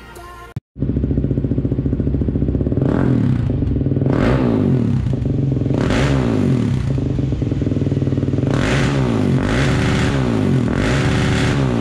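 Suzuki LTZ 400 quad's single-cylinder four-stroke engine idling through a Yoshimura exhaust and blipped on the throttle several times, each rev rising and dropping back to idle. A few bars of music end just before the engine comes in.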